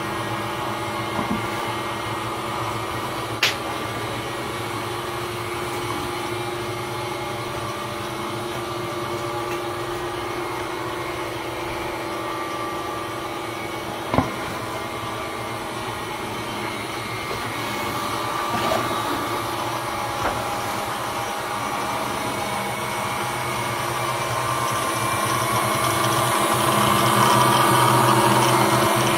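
A steady mechanical drone made of several steady tones, with a sharp click about three seconds in and another about halfway, swelling louder over the last few seconds.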